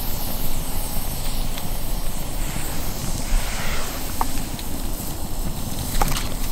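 Open wood campfire burning with a steady hiss and rush, with a couple of sharp crackling pops about four and six seconds in.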